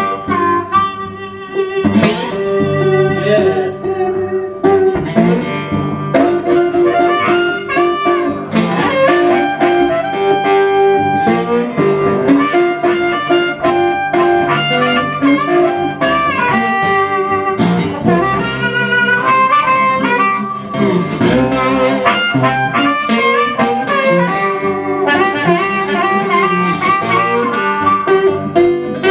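Blues harmonica solo with bent, wavering notes over a steadily played guitar accompaniment.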